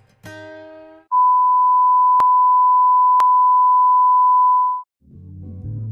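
Steady 1 kHz sine-wave test tone, a constant-level signal played as an example of RMS or continuous power. It starts about a second in and cuts off about a second before the end, with two short clicks a second apart in the middle. The tail of a sung pop song comes just before it, and guitar music comes in near the end.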